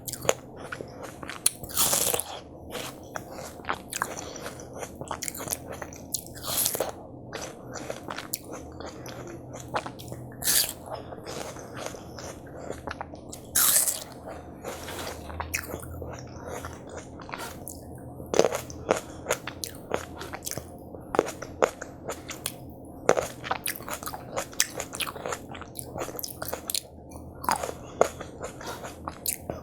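Watermelon being bitten and chewed up close: a dense run of crunchy bites and chewing clicks, with several louder bites spread through.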